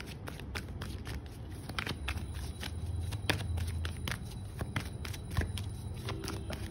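Tarot cards being shuffled by hand, overhand: quick, irregular taps and slaps of the cards against each other and the deck, over a low steady rumble.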